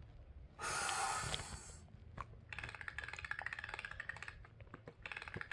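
A loud burst of breath lasting about a second, then two runs of rapid clicking from typing on a computer keyboard.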